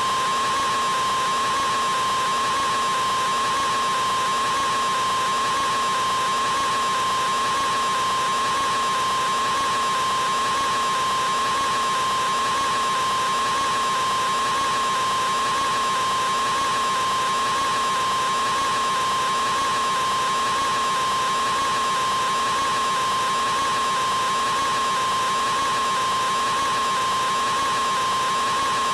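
A man's open-mouthed 'aaaa' scream, drawn out electronically into one unbroken note held at a single steady pitch and loudness.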